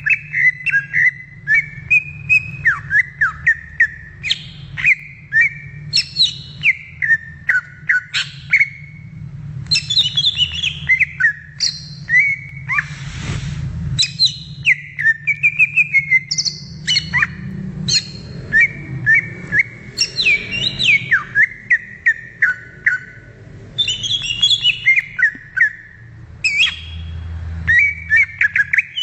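Cucak ijo (green leafbird) singing a fast, varied song of sharp whistled chirps and trills, with almost no pause. There is a brief hiss near the middle and a steady low hum underneath.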